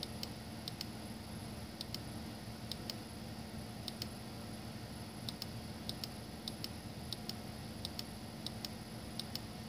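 Light, sharp clicks at irregular spacing, often in quick pairs, roughly one to two a second, over a steady low hum and hiss.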